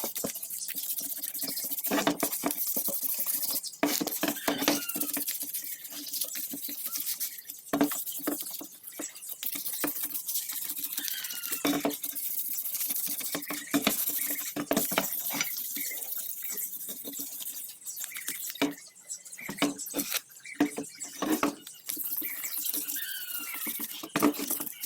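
Sandpaper rubbed by hand over a motorcycle engine's metal side cover in quick, uneven back-and-forth strokes, a scratchy rasp with a wet sound, as in wet sanding to key the surface before painting.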